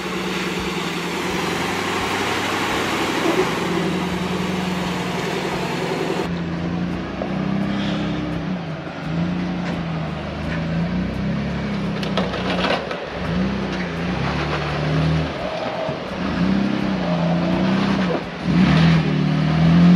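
Lifted rock-crawler engines working up a steep sandstone ledge. The engine note holds fairly steady at first, then rises and falls over and over as the driver feathers the throttle over the rock, with a few sharp knocks.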